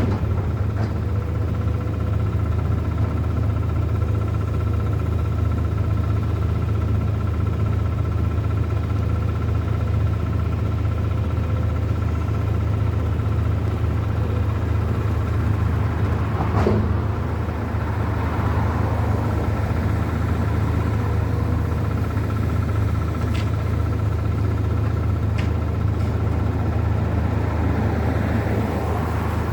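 A steady low engine rumble with a faint constant whine above it, and one sharp knock about two-thirds of the way through.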